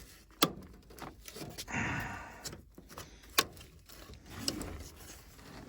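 Handling noises in an air handler's coil cabinet: two sharp knocks about three seconds apart, with a scraping rustle between them.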